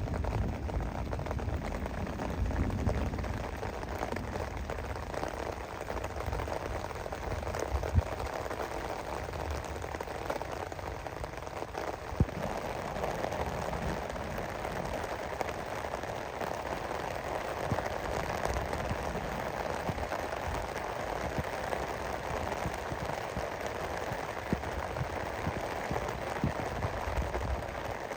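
Steady rain falling, with a low rumble in the first few seconds and a few sharp drop taps.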